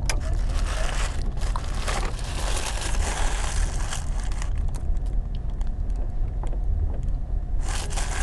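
Vehicle engine idling with a steady low rumble, heard from inside the cab. Over it a paper burger wrapper crinkles and rustles during the first few seconds as it is unwrapped, with another brief rustle near the end.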